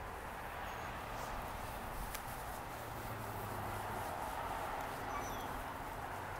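Steady outdoor background noise with a few faint, short, high chirps and a single click about two seconds in.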